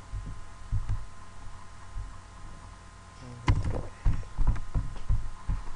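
Typing on a computer keyboard, heard as irregular dull low knocks with a sharper cluster of clicks about three and a half seconds in.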